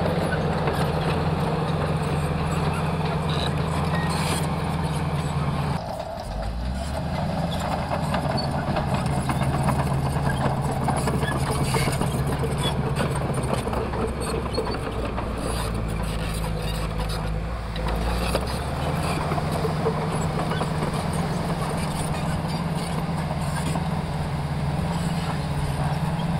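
Mitsubishi light dump truck's diesel engine running steadily while its hydraulic hoist tips the loaded bed up. The engine note changes after a brief dip about six seconds in, and again about eighteen seconds in.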